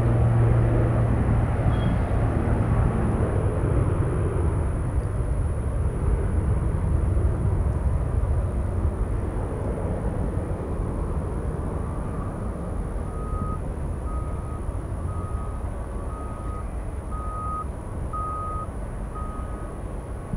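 Jet airliner engine rumble, loudest at first and slowly fading. About two-thirds of the way through, a vehicle's reversing alarm starts a string of short, evenly spaced high beeps, a little less than a second apart.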